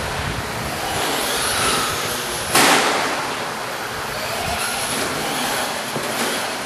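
Radio-controlled truck driving on a dirt track, heard as a steady noisy rush over the hall's background noise. A brief, sharp loud burst of noise comes about two and a half seconds in.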